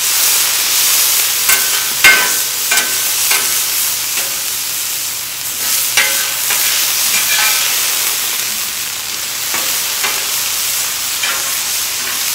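Thin-sliced ribeye sizzling on a hot flat-top griddle, a steady frying hiss, while a metal spatula chops and scrapes the meat against the griddle in sharp irregular clanks, the loudest about two seconds in.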